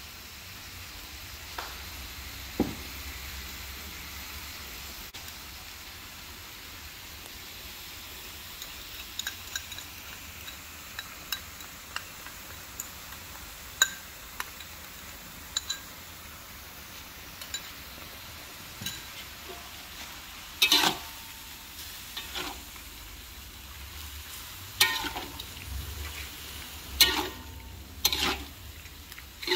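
Minced chicken sizzling steadily in a metal wok while a metal spatula scrapes and knocks against the pan. The scraping and clanking strokes come thicker and louder in the last third.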